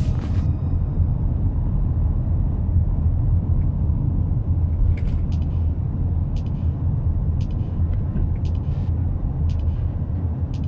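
Road and engine rumble inside a moving car's cabin: a steady low drone, with light sharp clicks or rattles about once a second in the second half.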